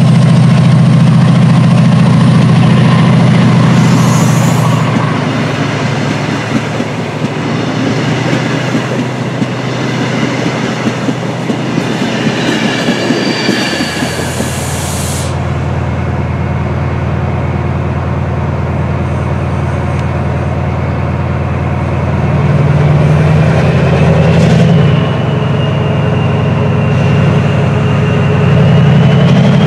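A diesel-hauled passenger train passing at speed: a heavy locomotive engine note, then the coaches' wheels clattering over the rail joints. After a cut, a diesel locomotive's engine working hard at a platform, with a whine that rises in pitch near the end.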